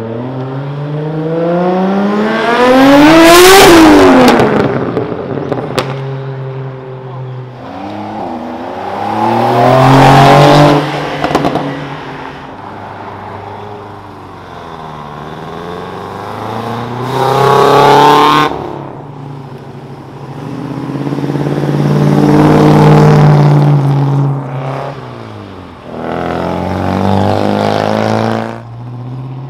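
Cars accelerating past one after another, about five in turn. Each engine note climbs as it revs, swells as the car goes by, then drops away. The first pass, a few seconds in, is the loudest.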